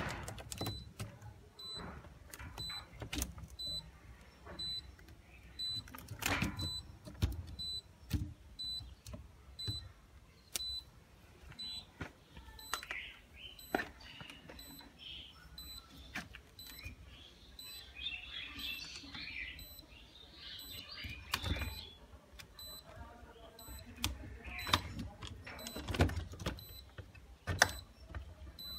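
Pliers and wire ends clicking, knocking and scraping against the metal terminals and plastic bodies of miniature circuit breakers as the wires are loosened and pulled free, in irregular sharp clicks with short scratchy rattles between them. A faint high beep repeats about twice a second underneath.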